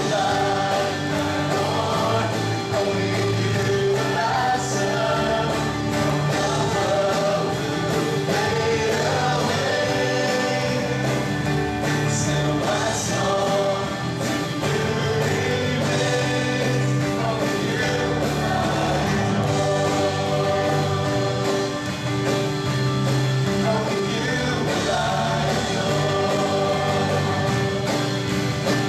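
Live worship music: a group of male and female singers singing a praise song together over an acoustic guitar and band accompaniment, steady throughout.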